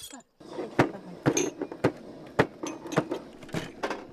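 Kitchen knife work: a knife blade scraped against another blade to sharpen it, and a knife chopping fresh chillies on a cutting board. Sharp knocks come about twice a second over a light scraping.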